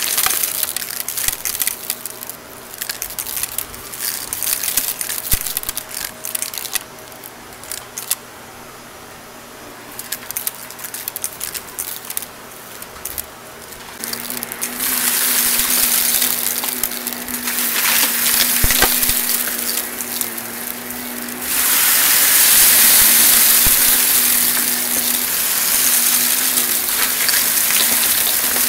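Shark Navigator XL upright vacuum running on carpet with a steady motor hum, bits of debris clicking and rattling as they are sucked up. About halfway through, a much louder rushing hiss takes over as it pulls in a thick mix of fine dirt, glitter and confetti, growing louder again a few seconds later.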